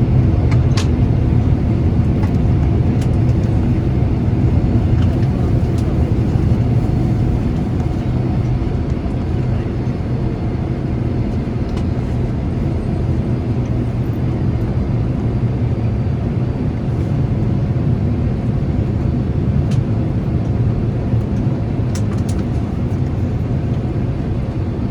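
Boeing 767 cabin noise just after landing: a steady low rumble from the engines and wheels as the airliner slows on the ground. It eases slightly over the first several seconds, with a few faint clicks.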